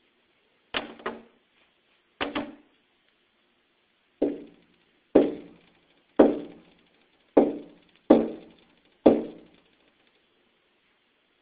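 Knocking on a hard surface: a series of sharp knocks, the first two doubled, then single knocks about a second apart, each with a short ringing tail.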